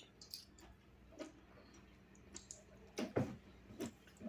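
Faint eating sounds: scattered small wet clicks and mouth smacks from chewing, with a few stronger smacks about three seconds in.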